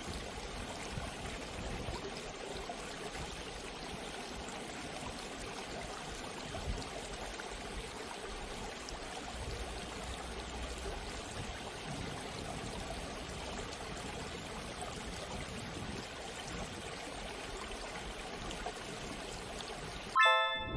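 Steady rushing of a waterfall. Near the end the water sound cuts off and a loud, ringing pitched tone sounds: the timer's end signal.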